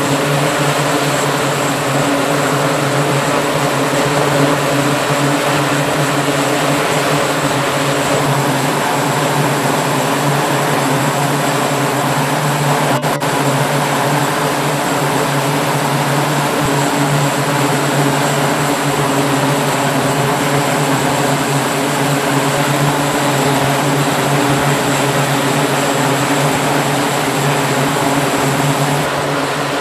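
Northrop Grumman E-2 Hawkeye's twin Allison T56 turboprop engines running on deck, propellers turning with a loud, steady hum that does not change in pitch.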